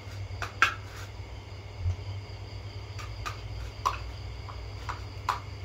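Spoons clinking and scraping against ceramic plates and bowls as rice and food are served, about ten short clinks, the loudest under a second in. A steady chirring of crickets and a low hum run underneath.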